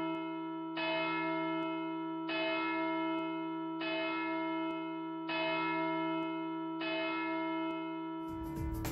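Church tower bell tolling slowly, one stroke about every second and a half, each stroke ringing on and fading. Louder music comes in near the end.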